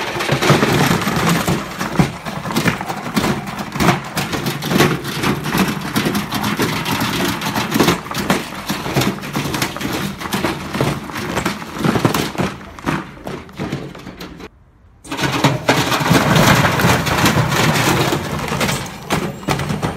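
Tricity Bendix 1000 washing machine running itself to destruction, its drum violently banging and rattling in a dense, continuous clatter. The noise breaks off for about half a second near three-quarters of the way through, then resumes just as loud.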